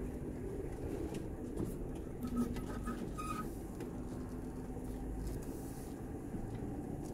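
An off-road vehicle's engine running at a steady low speed, with an even low rumble.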